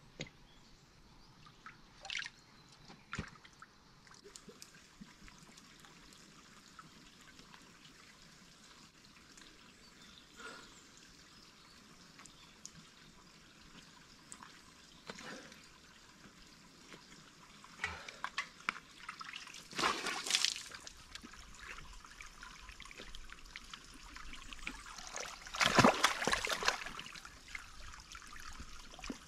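Water splashing and trickling as a cup is dipped into and poured out over a stone-lined well, with short splashes at irregular moments; the loudest splashes come in the last few seconds.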